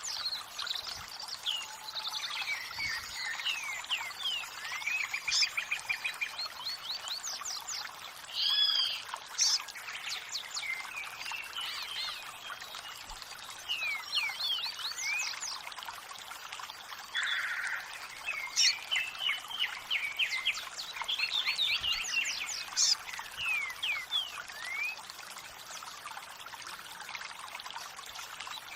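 Many wild birds chirping and singing over steadily running water, with rapid trills and repeated whistled calls overlapping throughout.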